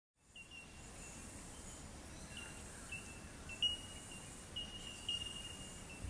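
Faint outdoor nature ambience fading in: a soft hiss with a high, thin, steady-pitched chirring that comes and goes in short stretches.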